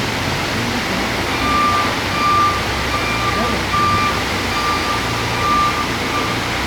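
A G30D forklift's reversing alarm beeping steadily, about one beep every 0.7 seconds, starting about a second and a half in and stopping shortly before the end, over the forklift's engine running.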